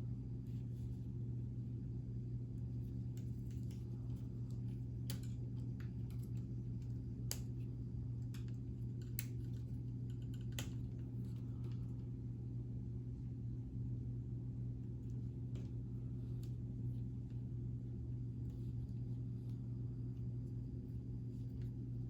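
Scattered sharp clicks of K'nex plastic pieces being handled and unclipped, over a steady low electrical hum.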